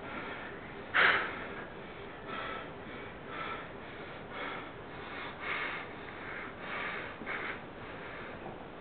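A person breathing in short, noisy breaths, heard about once a second, with one louder, sharp breath like a gasp or snort about a second in.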